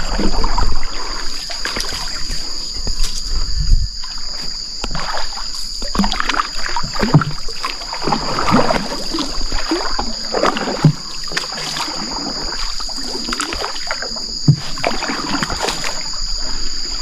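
A wooden canoe moving on a river: irregular water splashing and sloshing around the hull, with a few sharp knocks. A steady high insect drone runs underneath.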